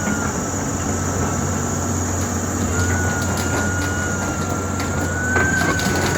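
Caterpillar 320D excavator running, its diesel engine giving a steady low drone. Over it a thin high whine wavers slightly in pitch, dropping out for about a second and a half after the first second.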